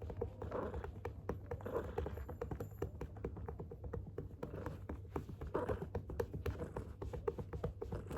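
A hand patting a calico cat's rump in a quick series of soft taps, while the cat purrs underneath.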